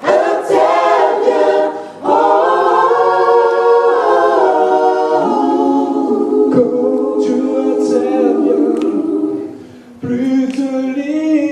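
Several voices singing a gospel worship song a cappella in harmony, holding long notes, with brief breaks for breath about two seconds in and near the end.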